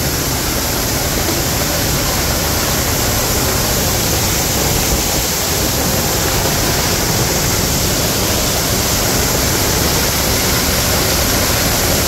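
Cucumber Falls, a waterfall pouring over a rock ledge, heard close up from behind the falling water: a loud, steady, unbroken rush.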